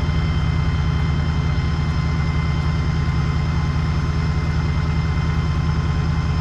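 Mini excavator's diesel engine running steadily at idle, with a faint steady high-pitched tone above it.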